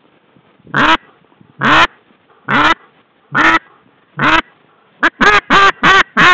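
Duck call blown in a run of loud quacks: five evenly spaced notes, then a quicker string of short quacks about a second from the end. In retriever training this is the thrower's call that draws the dog's eye out to the fall before the mark is thrown.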